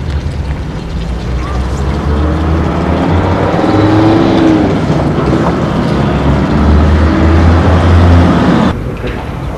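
A motor vehicle engine running with a steady low drone, its pitch rising and falling around the middle; it cuts off abruptly near the end.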